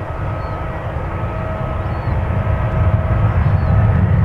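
Airbus A320-200 airliner's jet engines during the landing rollout just after touchdown: a deep rumble with a steady whine over it, growing louder from about two seconds in.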